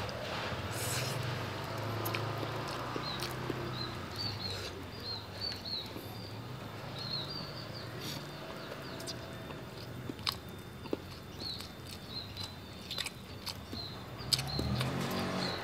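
Close-up chewing and crunching of cooked eel eaten by hand, with many short sharp clicks and smacks scattered through.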